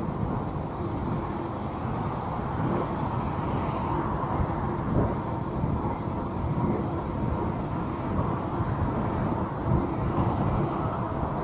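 Mountain bike riding noise on a paved path: a steady low rumble of wind on the microphone and tyres rolling, with car traffic passing on the road alongside.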